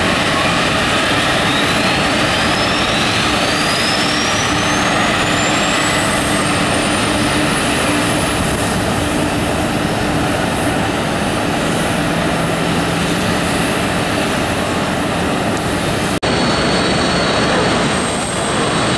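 Boeing 777 jet engine noise: a steady roar under a thin whine that climbs steadily in pitch over about nine seconds as an engine spools up during the start on pushback. It breaks off abruptly about sixteen seconds in and resumes as a steadier roar with a constant high whine.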